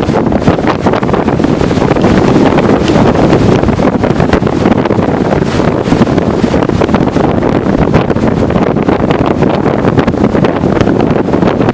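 Strong tropical-storm wind blasting the microphone: a loud, continuous rumbling rush with no lulls.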